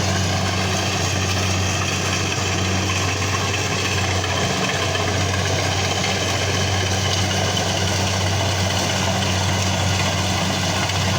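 Engine running steadily at a constant speed, an even low hum with no changes in pitch.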